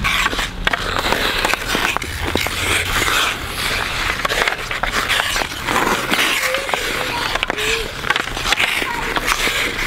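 Ice skate blades scraping and carving across outdoor ice, with hockey sticks clicking and tapping against a puck and the ice.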